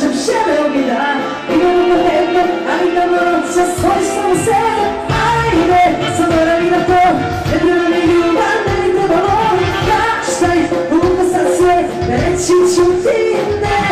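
Live band and singer performing amplified Balkan folk-pop through the club's PA, with an ornamented, wavering vocal melody; the drums and bass come in about four to five seconds in.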